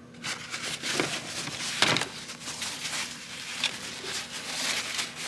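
Paper towel rustling as hands handle and wipe an oily power steering hose fitting, with a few light knocks of the parts.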